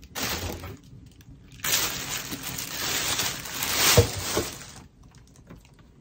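Plastic bag crinkling and rustling, with cardboard packaging handled, as a mini fridge is unwrapped: a short rustle, a pause, then a longer stretch of crinkling with a thump about four seconds in.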